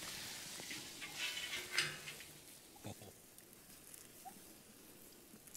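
Campfire under a smoker crackling and sizzling as bacon grease drips into the mesquite fire, with a brief louder clatter about two seconds in; it is quieter after that.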